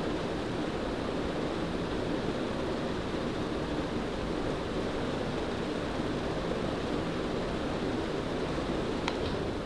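Casablanca Stealth DC ceiling fan spinning, its blades making a steady rush of moving air. There is a short click near the end.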